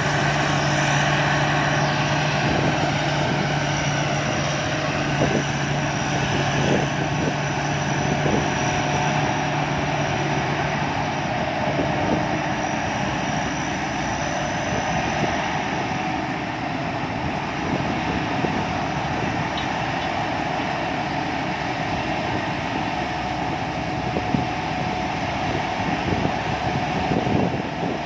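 Sakpattana combine harvester running steadily, its engine and threshing machinery making a dense, even mechanical drone; a low hum within it drops away about a third of the way through.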